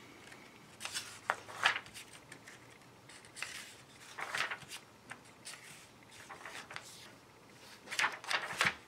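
Pages of a thin printed paper booklet being turned by hand: several short paper rustles, the loudest near the end.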